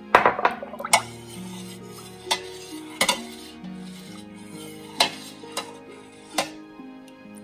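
A spoon stirring milk in a pressure cooker's pot, clinking and scraping against the side: a quick cluster of knocks at the start, then single knocks about every second. Soft background music plays underneath.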